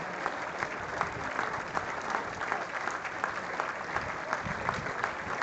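Large crowd of spectators applauding steadily, many separate hand claps overlapping without a break.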